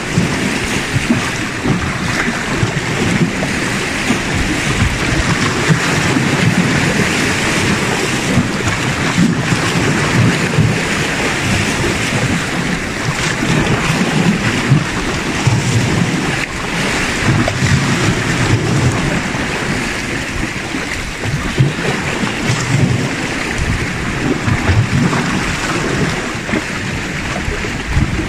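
Small sea waves washing against shore rocks, with wind buffeting the microphone in a gusty low rumble.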